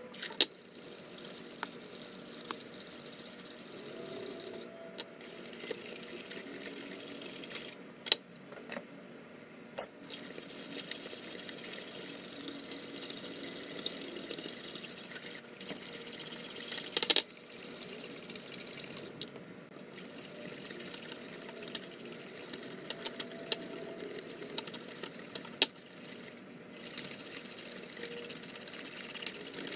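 Wire balloon whisk beating a syrupy coffee, sugar and hot-water mixture in a ceramic bowl: a steady wet clatter of the wires against the bowl, whipping it toward dalgona foam, with a few sharper clicks, the loudest about 17 seconds in.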